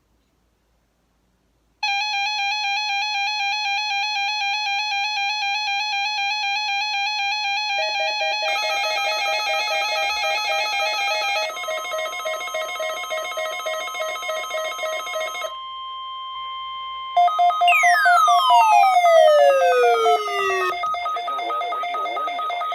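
Electronic alert tones: a warbling tone starts about two seconds in and more tones layer on top around eight seconds, all cut off briefly near sixteen seconds, then a pulsing tone returns with a loud falling whistle that glides from high to low over about three seconds.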